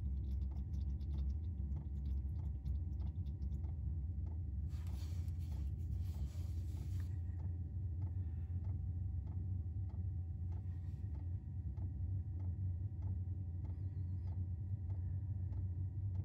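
Chinese diesel parking heater starting up: its fuel dosing pump ticks about twice a second over the steady hum of its combustion-air fan, pumping fuel to the glow plug before the burner lights. A short hiss comes about five seconds in.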